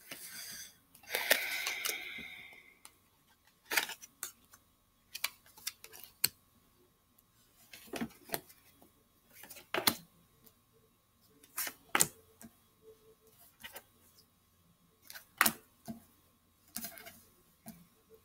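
Tarot cards being handled: a rustling shuffle or riffle in the first seconds, then sharp snaps and taps as cards are flipped and laid down one at a time, every second or two.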